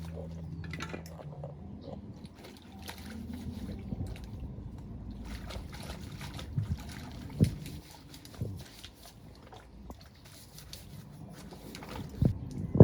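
Water sloshing and trickling, with irregular knocks and clicks of parts being handled; the sharpest knocks come about two-thirds of the way in and near the end.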